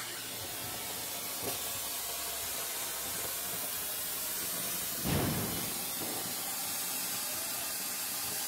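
Ground fountain firework (anar) spraying sparks with a steady hiss, surging briefly a little louder about five seconds in.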